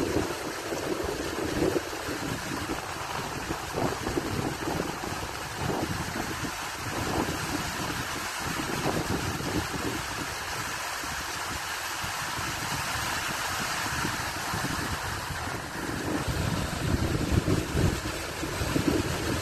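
Fast stream water rushing and churning white over a low drop: a steady, even rushing noise. Low buffeting of wind on the microphone comes in near the end.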